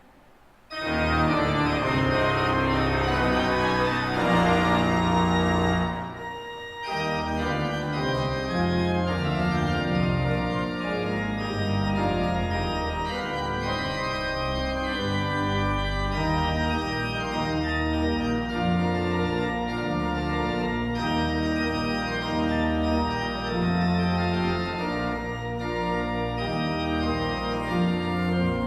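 Organ playing sustained chords over a held bass line. It starts abruptly under a second in after near silence, breaks off briefly about six seconds in, then plays on steadily.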